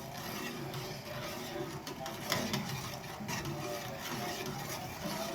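A pot of herbal decoction boiling on the stove while it is stirred, a steady hiss and bubbling with a few sharp knocks of the spoon against the pot.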